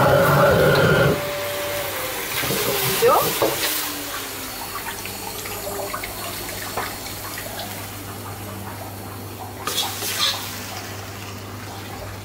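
Restaurant wok burner roaring under the wok, cut down about a second in. Then a metal ladle scrapes, squeaks and clinks against the wok as the stir-fry is scooped onto a plate, over a steady low kitchen hum.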